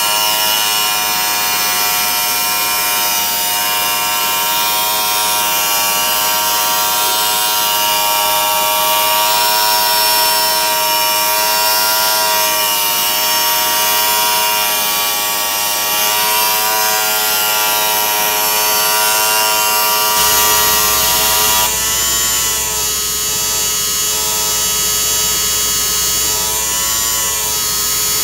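Electric orbital pipe-cutting machine running on a large-diameter steel pipe: a steady buzzing motor whine that wavers slightly in pitch. About twenty seconds in, the sound becomes deeper and fuller.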